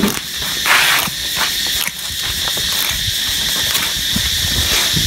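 A steady, high insect chorus with rustling and knocks from handling and low wind rumble on the microphone; a louder rustle about a second in.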